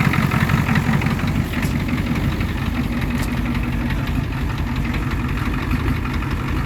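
The 7.3-litre IDI V8 diesel of a 1990 Ford F-250 idling steadily with an even diesel clatter, just after a cold start following a long time unused.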